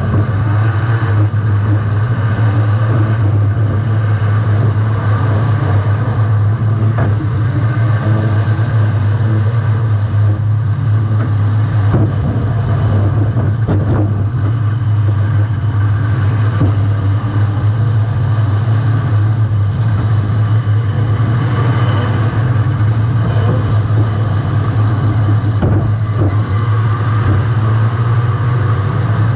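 Welded compact demolition-derby car's engine running loud and steady, with a few sharp bangs from car-to-car hits.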